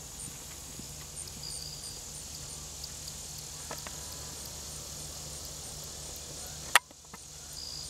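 Insects chirping in a field at dusk, short high chirps repeating about three times a second over a steady low hum. A sharp click about a second before the end is the loudest sound, with the background dipping for a moment after it.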